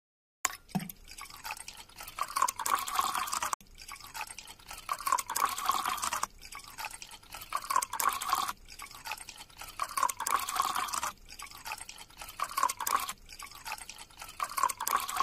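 Coloured liquid pouring and dripping from small plastic bottles into the cups of a metal muffin tin. It comes as a run of separate pours, one after another, each stopping with a sudden cut.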